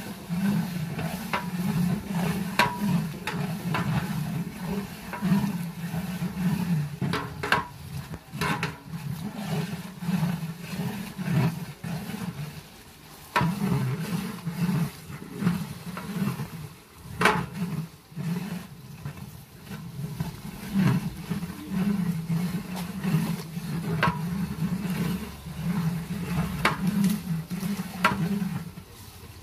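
A long metal ladle stirring khichuri in a large aluminium cooking pot, scraping and knocking against the pot every few seconds over a steady low rumble.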